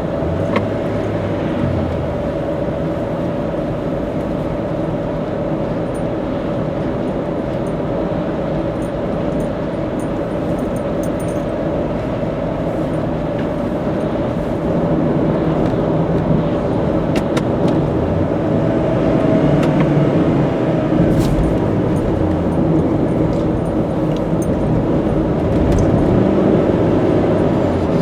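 Car cruising at expressway speed, heard from inside the cabin: steady tyre, road and engine noise with a low rumble and a constant hum, growing a little louder about halfway through.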